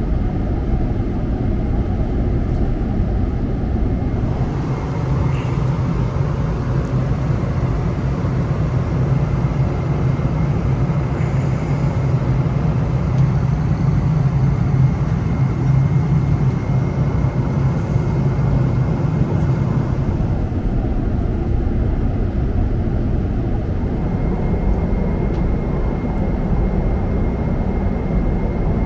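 Jet airliner cabin noise in cruise: a steady, even low rush. A faint high steady tone comes in near the end.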